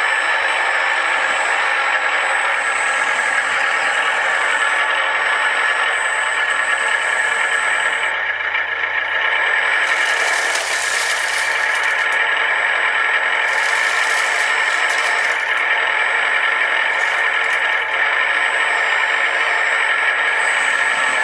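Radio-controlled scale model construction vehicles running: a steady mechanical whir and rattle, with high hissing stretches about ten and fourteen seconds in.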